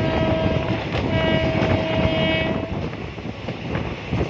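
Train horn sounding in two blasts over the steady running rumble of a passenger train on the rails. The first blast ends just under a second in, and the second lasts about a second and a half. The horn warns a level crossing just ahead.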